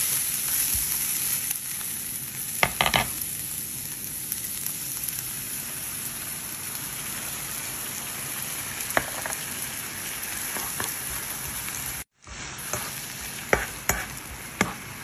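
Spinach and garlic sizzling in a nonstick frying pan over a steady hiss, with a spatula scraping and tapping against the pan a few times. Cooking cream is stirred through partway.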